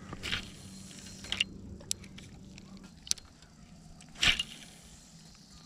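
Handling noise from a spinning rod and reel and a sweatshirt sleeve: scattered sharp clicks and rustles, the loudest a short burst just after four seconds, over a steady low hum.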